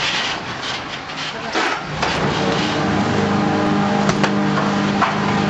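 Rotopress garbage truck pulling forward: scraping noise at first, then the engine settles into a steady hum about two seconds in, rising slightly in pitch as the truck moves off. Two sharp knocks come near the end.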